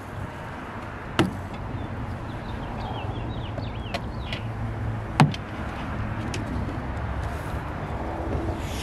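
Two sharp knocks, about a second in and about five seconds in, from a car-door lockout tool knocking against the door frame and window glass as it is worked in, over a steady low hum.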